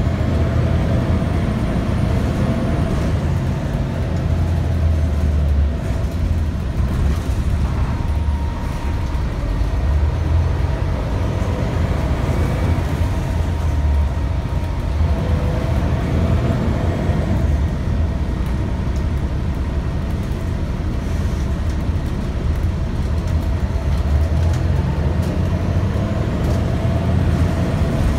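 2001 Gillig Low Floor transit bus running, heard from inside the cabin: a steady low engine and road rumble with a faint steady whine above it.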